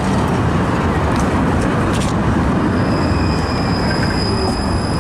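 71-931M "Vityaz-Moscow" low-floor tram running on the rails with a steady rumble. A thin, steady high whine joins about three seconds in.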